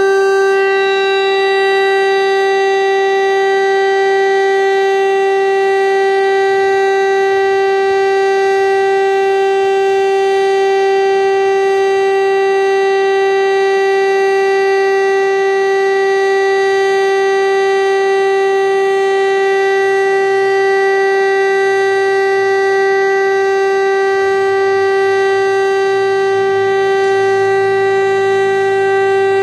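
Czech civil defence siren sounding the steady monthly test tone, one continuous, unwavering pitch with no rise or fall.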